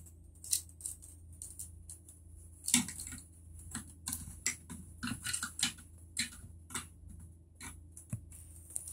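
Lego bricks and minifigure parts being handled and fitted together: irregular small plastic clicks and taps, a dozen or more, none very loud.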